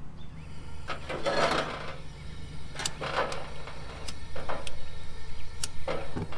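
Gas camp stove being lit: a few sharp clicks and short bursts of hissing as the burner is turned on and catches.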